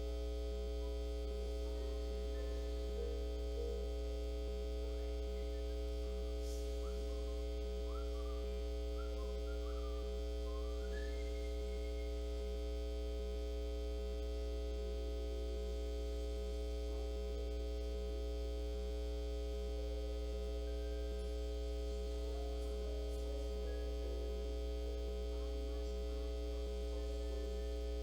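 Steady electrical mains hum on the livecam's audio: a low hum with several constant tones above it and a fainter tone that pulses at an even rhythm. A few faint short chirps come about ten seconds in.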